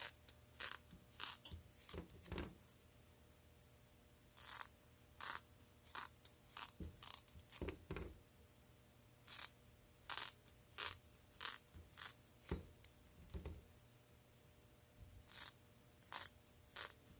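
Scissors snipping through sheets of Castaldo Gold Label uncured mold rubber: a string of short, sharp cuts at irregular intervals, about one or two a second, with a couple of short pauses.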